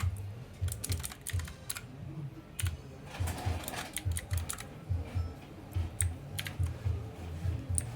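Keys of a Redragon mechanical gaming keyboard pressed in quick, irregular clacks, many strokes with a dull low thud as the keys bottom out.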